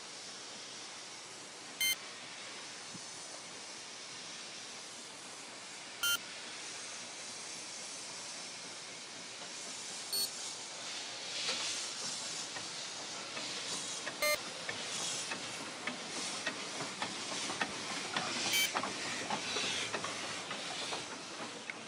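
Narrow-gauge steam locomotive moving slowly past with a steady hiss of escaping steam, louder and more rhythmic in the second half as it draws near. A short electronic beep repeats about every four seconds.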